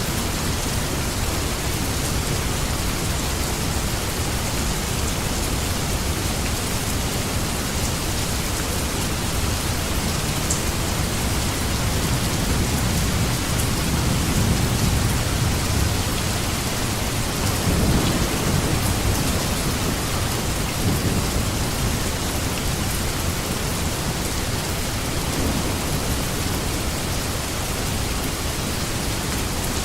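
Steady heavy rain hissing, with a low rumble of thunder that swells about halfway through and fades away again.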